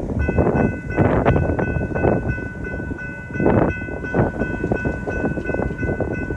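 Freight locomotive air horn blowing one long held chord, starting just after the start, over the rumble of the approaching train and gusts of wind on the microphone.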